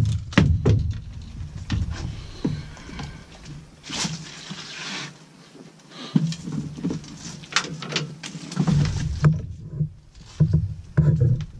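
Irregular knocks, thumps and rustles of hands and fishing gear on a boat's deck as a small flathead catfish is handled in the landing net, with a brief rush of noise about four seconds in.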